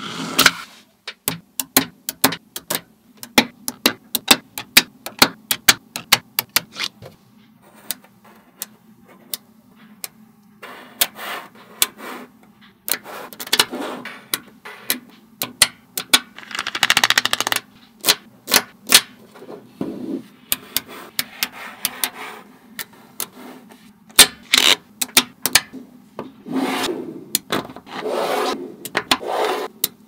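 Small neodymium magnet balls clicking sharply as they snap onto one another, many clicks in quick irregular runs, with stretches of soft rubbing and rattling as rows of balls are pressed and slid into place.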